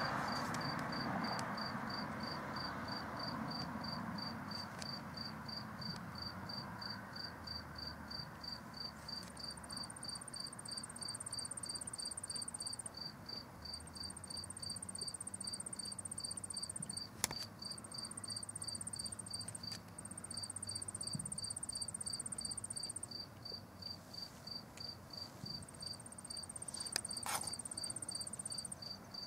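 Crickets chirping in an even, steady rhythm of high pulses, with a higher insect trill that comes and goes in stretches of a few seconds. Two sharp clicks, one near the middle and one near the end.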